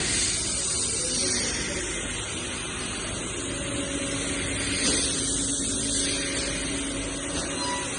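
Double-sided timing belt tooth-grinding machine running: a steady hissing grinding noise, with a faint steady hum joining about three and a half seconds in.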